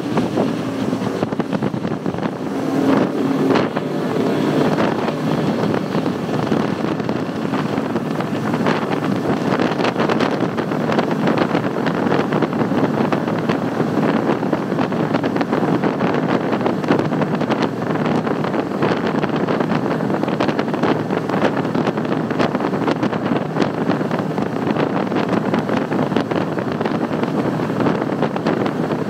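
Three Mercury 600 hp V12 Verado outboards running steadily at speed. The engine sound is mixed with rushing water from the wake and heavy wind on the microphone.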